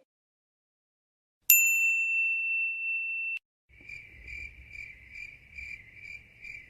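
A single high ding-like tone held for about two seconds and cut off sharply, then, after a short pause, the cricket chirping sound effect used for awkward silence: a high chirp repeating about three times a second.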